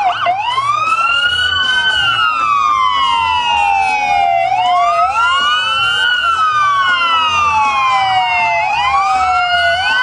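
Several emergency vehicle sirens wailing at once, each sweeping up quickly and then falling slowly in pitch, overlapping out of step with one another.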